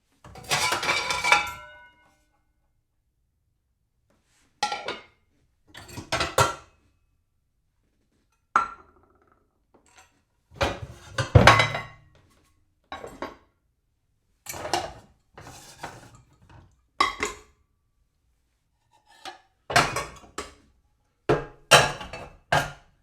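Dishes being shuffled and stacked: a series of separate clattering, clinking bursts of crockery knocking together, some with a short ringing tone, with silent gaps between them. The longest burst comes at the start.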